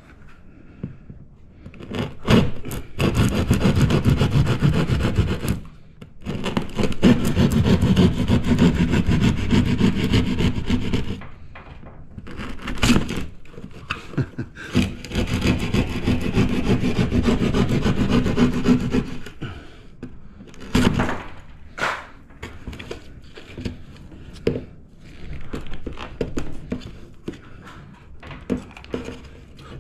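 Hand jab saw cutting through a drywall ceiling for an old-work box, in three long runs of rapid back-and-forth strokes. After them come scattered light knocks and scrapes.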